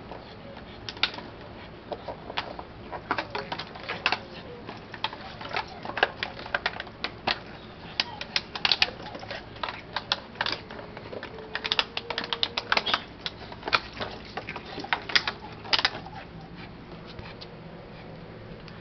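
Plastic water bottle being chewed and pawed by a pug puppy: irregular clusters of crackling, clicking plastic that die away a few seconds before the end.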